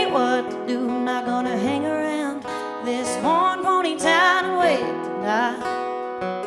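A singer holding long, wavering notes over a strummed acoustic guitar.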